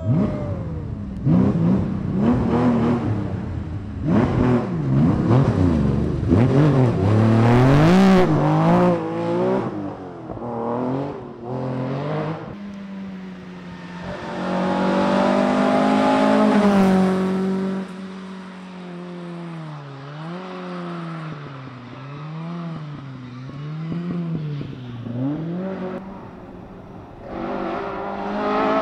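Historic rally car engines at full throttle, revving up and dropping back again and again with gear changes and corners. One car is loudest about halfway through as it passes close, and later the revs swing up and down in an even rhythm.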